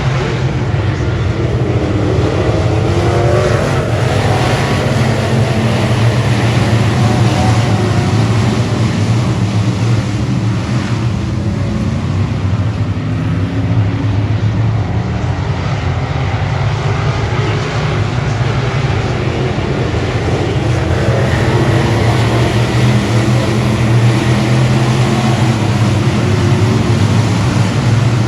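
Dirt-track race car engine running hard, its pitch rising and falling as the car works around the track.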